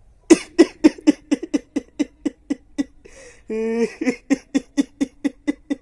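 A man laughing in a long run of short, even 'ha' pulses, about four a second, with a drawn-out held vocal sound a little past the middle.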